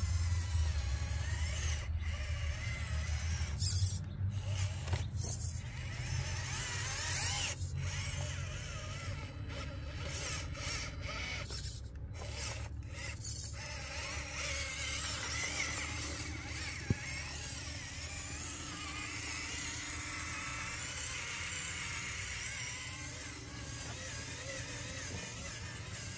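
Electric drive motor and gearbox of a HobbyPlus Arktos 6x6 RC crawler truck whirring and grinding as it crawls over rocks, with the whine cutting out briefly several times as the throttle eases off.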